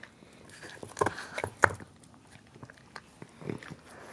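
A Cavalier King Charles Spaniel licking and chewing at frozen food in a soft silicone slow-feeder bowl: scattered wet smacks and clicks, the sharpest about one and a half seconds in.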